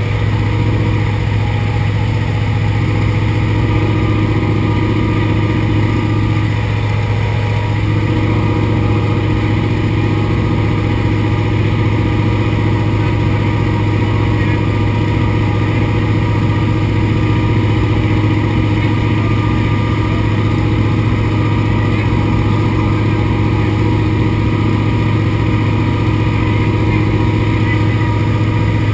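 Antonov An-2's nine-cylinder Shvetsov ASh-62 radial engine and propeller droning steadily in flight, heard from inside the cabin. There is a brief drop in tone about six seconds in.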